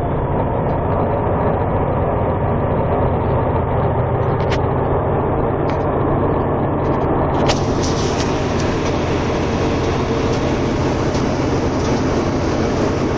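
Tractor-trailer's diesel engine and road noise, heard from inside the cab as a steady drone. There is a sharp click about four and a half seconds in, a few more clicks and rattles at around seven and a half seconds, and a brighter hiss of road noise after that.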